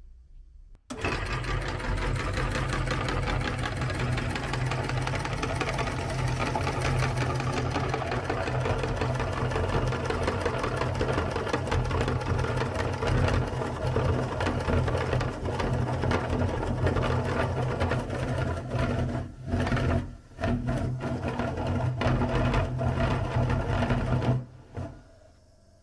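Electric meat grinder starts about a second in and runs steadily, a low motor hum with fast mechanical clatter, as it grinds candy. It dips briefly twice and stops shortly before the end.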